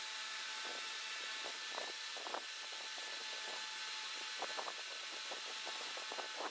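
A power tool running steadily, with scattered short knocks and clicks.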